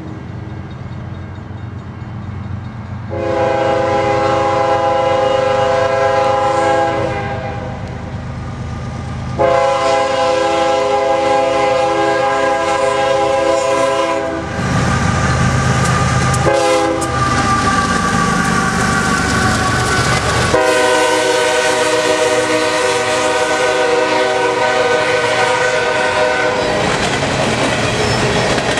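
Diesel locomotive air horn of a GE ES44AC-led empty coal train sounding the grade-crossing signal: two long blasts, one short, one long, over the diesel engines working as the train picks up speed. Near the end the empty coal hopper cars rattle and clack past over the rail joints.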